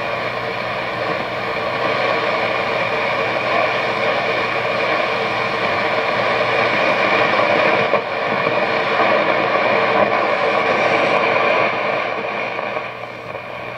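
Static hiss from the speaker of a 1960 General Electric Musaphonic six-tube AM clock radio as the dial is tuned off a station, with steady hum tones running under it. The hum is the set's one real fault. The hiss dips briefly about two-thirds of the way through and fades a little near the end.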